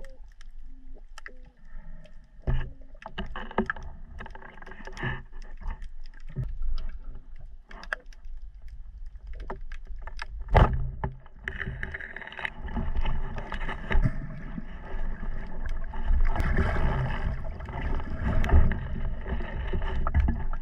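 Muffled underwater sound while swimming: water rushing and sloshing, with scattered sharp clicks and knocks. It gets louder and busier from about halfway through.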